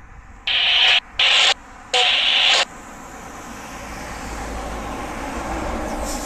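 Three loud, harsh hisses, each about half a second long, in the first three seconds. Then the rumble and tyre noise of a lorry approaching on the road swells steadily.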